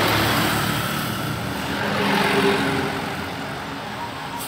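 Road vehicles passing close by, engine and tyre noise. It swells at the start, swells again about two seconds in, then fades.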